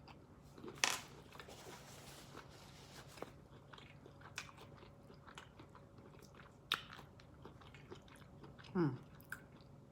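Close-up mouth sounds of someone eating a seafood boil: scattered wet smacks, clicks and chewing, with a sharper click about a second in. A brief falling vocal murmur comes near the end.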